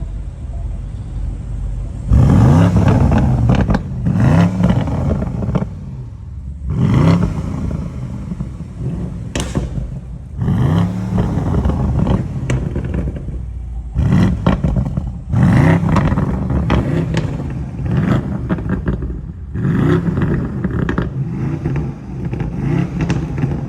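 Two BMW M850i twin-turbo V8 engines revved repeatedly from idle, about a dozen short blips whose pitch rises and falls, with sharp exhaust crackles between revs.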